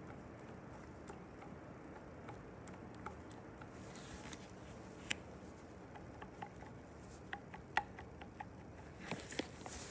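Faint scattered clicks and rubbing as gloved hands turn over a clutch concentric slave cylinder, over a steady low hiss. The sharpest clicks come about five seconds and eight seconds in, and a rustle of handling starts near the end.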